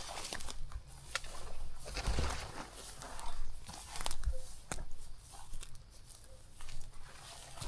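Footsteps crunching through dry bush undergrowth, with irregular snaps and crackles of twigs and leaves underfoot.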